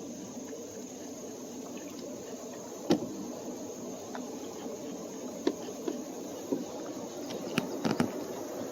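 Canoe on a river: a steady wash of moving water with insects buzzing, broken by several sharp knocks against the canoe, the loudest about three seconds in and a quick cluster near the end.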